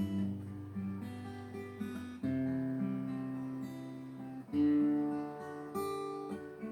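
Acoustic guitar strumming a slow run of chords, each left to ring, with new chords struck about two seconds in and again past halfway.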